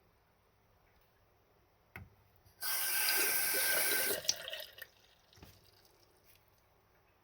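GROHE single-lever basin faucet: a click about two seconds in, then water runs into the basin for under two seconds and is shut off, trailing into a brief trickle.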